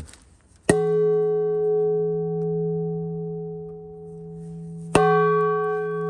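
Massive thick-walled rusted metal bowl from a mill, struck twice with a piece of wood about four seconds apart. Each blow leaves a long, deep, bell-like ring of several steady tones that fades slowly, and it sounds like a church bell.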